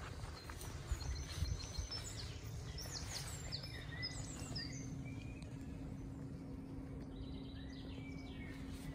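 Small songbirds chirping and trilling over a low outdoor rumble, with a steady low hum coming in about halfway through.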